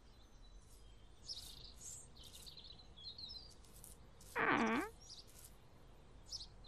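Faint background birdsong of scattered high chirps and tweets. A little past four seconds there is one short vocal sound that dips and then rises in pitch.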